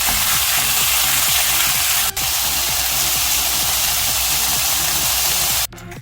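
Food sizzling loudly in hot oil, a steady hiss that cuts off suddenly near the end, with a brief break about two seconds in. Background music plays underneath.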